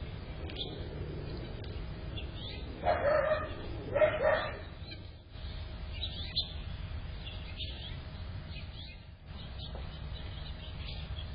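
A dog barks twice, about a second apart, while small birds chirp faintly throughout over a steady low rumble.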